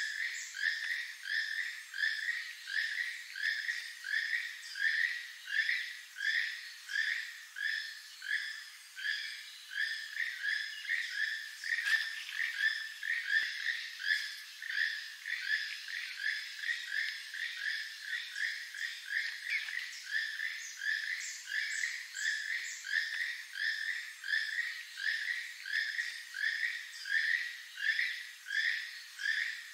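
Keel-billed toucan giving its frog-like croaking song, one call repeated steadily at about three calls every two seconds.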